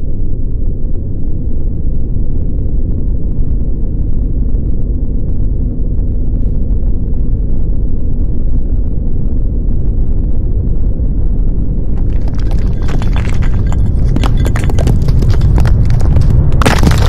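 Earthquake rumble: a loud, steady deep rumbling, joined about twelve seconds in by rapid rattling and clattering of shaken objects that grows louder toward the end.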